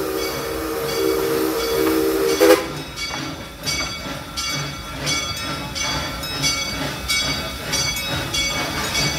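A steam locomotive's chime whistle sounding a held chord of several notes, cut off sharply about two and a half seconds in. The train then runs on with a regular beat of about two chuffs or clatters a second.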